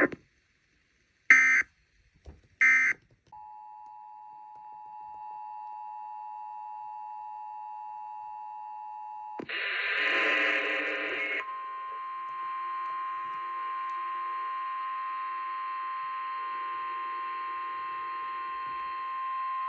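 Emergency Alert System signals: two short screechy bursts of SAME digital data, then the two-tone EAS attention signal held for about six seconds. About nine seconds in comes a short harsh burst, and then a steady single-tone NOAA Weather Radio warning alarm.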